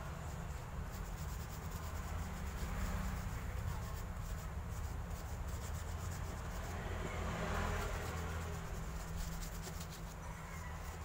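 Small paintbrush brushing black shoe paint onto a shoe, a soft rubbing that swells about three seconds in and again near eight seconds, over a steady low hum.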